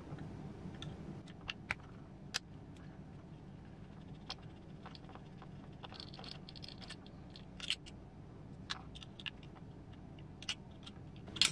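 Faint scattered clicks and light scrapes of a hex driver working the leaf-spring screws on an RC scale truck's metal chassis.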